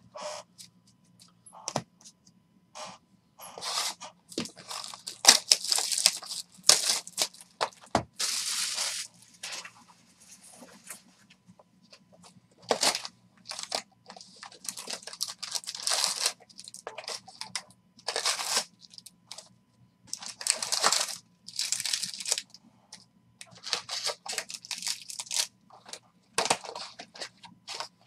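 A Bowman Hobby box of baseball cards being torn open by hand, and its foil card packs pulled out and stacked: cardboard tearing and packs crinkling and rustling in short, irregular bursts.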